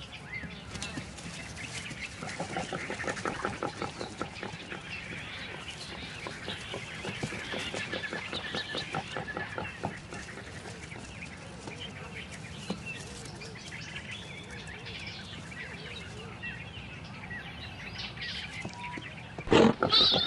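Warthog piglets grunting and squeaking beside the sow, over chirping birds. Near the end a sudden, much louder burst of noise comes as the warthogs bolt.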